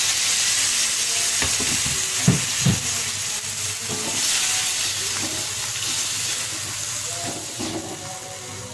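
Sponge gourd, tomato and chili sizzling in a hot wok with a little water just added, stirred and scraped with a slotted spatula. The spatula knocks on the wok twice about two and a half seconds in, and the sizzle fades slowly toward the end.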